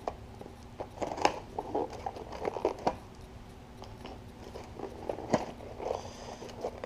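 Small parts and packaging being handled on a workbench: scattered light clicks and knocks with a crinkly rustle between them, the loudest knock about five seconds in.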